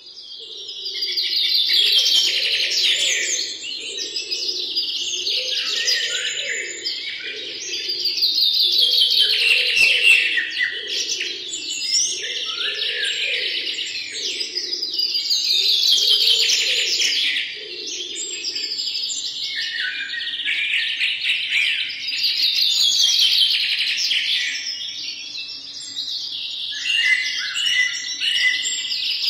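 Many birds chirping and trilling together, swelling and fading in loudness every few seconds. A lower warbling layer drops out a little past the middle.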